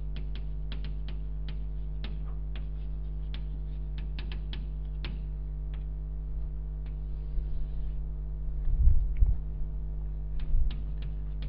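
Chalk tapping and scraping on a blackboard while writing, heard as many short sharp clicks that stop about six seconds in, over a steady electrical hum. A few dull low thumps come near the end and are the loudest sounds.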